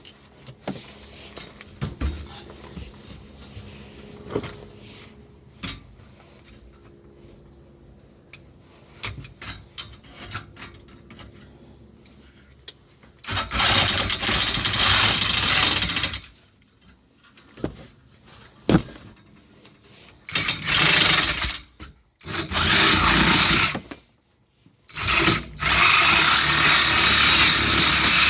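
Light handling clatter of metal parts, then a power cutting tool running loud in several bursts of a few seconds each, a blade cutting through scrap metal.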